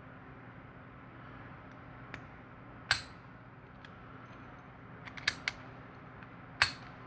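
Sharp metallic clicks of a padlock being worked by hand: four short clicks, one about three seconds in, two close together past five seconds, and one near the end, over a faint steady hum.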